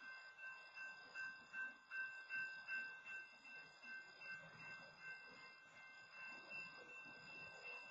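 Railroad crossing warning bell ringing faintly and steadily, about two to three dings a second, while the crossing is blocked by a stopped freight train.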